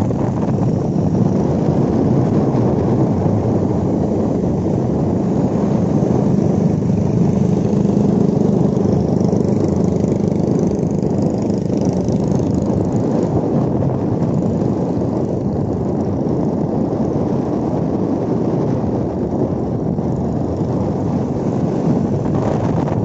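Motorcycles riding at road speed: wind rushing over the microphone on top of a steady engine hum, with a faint engine tone steadier for a few seconds in the middle.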